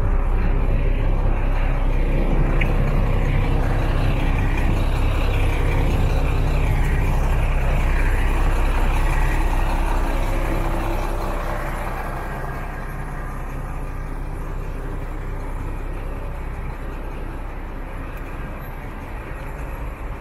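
An idling engine running steadily as a low hum over general street noise. It becomes quieter about halfway through.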